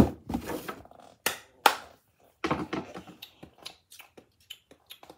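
A boxed toy figure in cardboard-and-plastic-window packaging being handled and set down on a wooden floor: a series of irregular sharp knocks and taps with softer scraping between them.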